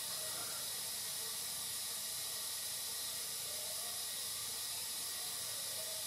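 Steady high-pitched hiss with no other clear sound.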